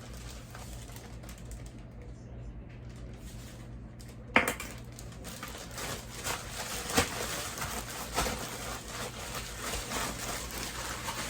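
Dry rub being worked onto raw chicken breasts: a sharp knock about four seconds in, then steady rustling and clatter with a few clicks.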